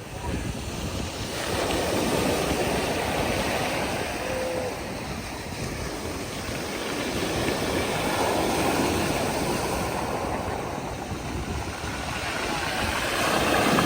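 Black Sea surf washing onto the beach, a steady rush of water that swells with each incoming wave, three times: about two seconds in, about eight seconds in and near the end.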